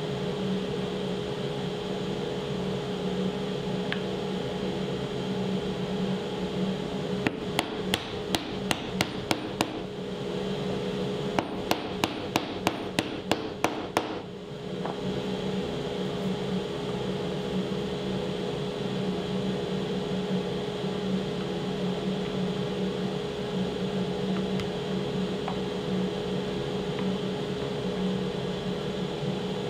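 Wooden mallet tapping bowtie (butterfly key) inlays into their glued mortises in a walnut slab. Two runs of about nine quick taps each, roughly three a second, come a couple of seconds apart about a third of the way in, over a steady hum.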